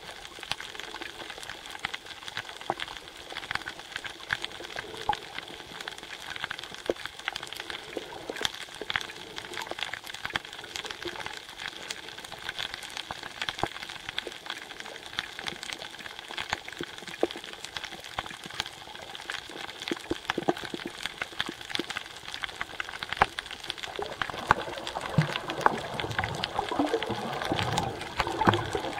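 Underwater reef ambience: a steady crackle of many tiny, irregular clicks, the sound of snapping shrimp on a coral reef. In the last few seconds a louder, lower swirl of water movement comes in.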